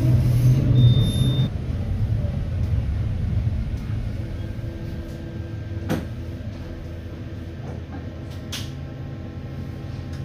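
Cabin noise inside a tram: a low running rumble that eases off over the first few seconds, with a brief high tone about a second in. It gives way to a quieter steady hum, broken by two sharp clicks in the second half.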